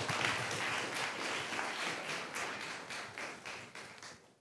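Audience applauding, a dense patter of many hands clapping that thins and dies away toward the end.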